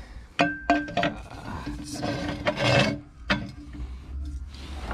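A metal exhaust header is being handled and scraped against wood and metal. There are a couple of knocks about half a second in, one with a short metallic ring, then scraping, then another knock about three seconds in.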